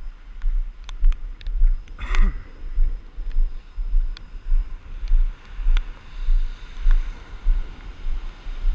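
Storm wind buffeting the microphone in gusts, a heavy low rumble, with scattered sharp ticks of driving rain striking it. A short falling voice-like sound comes about two seconds in.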